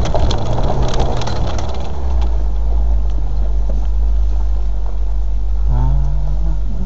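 Land Rover engine running with a heavy low rumble, rough and uneven for the first two seconds, then settling into a steady low drone.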